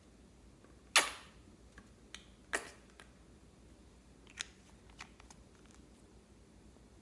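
A handful of sharp clicks and pops, the loudest about a second in with a short ring after it, and the rest fainter and spread out.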